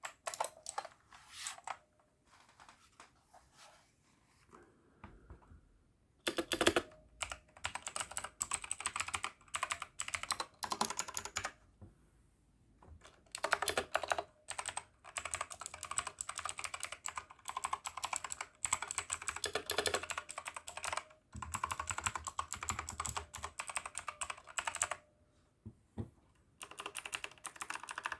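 Typing on an AJAZZ AK871 mechanical keyboard with blue switches: fast runs of clicky keystrokes in bursts with brief pauses, lighter in the first few seconds.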